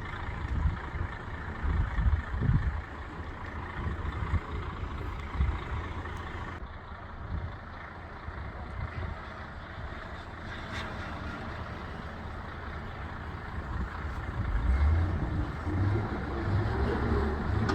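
Buses and trucks running along a snowy road, with a continuous rumble of engines and tyres. Near the end an engine grows louder as a vehicle comes close.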